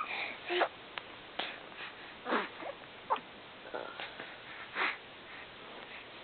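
A baby hiccuping: a string of short, sharp hiccups about every half second to second, some with a small squeak, the loudest at the start.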